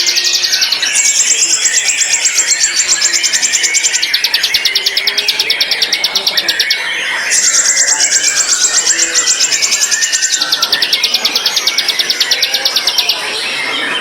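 White-rumped shama (murai batu) singing long, rapid trills of high repeated notes. Each trill lasts a few seconds, and they alternate between a higher and a slightly lower trill, with a short pause about a second before the end.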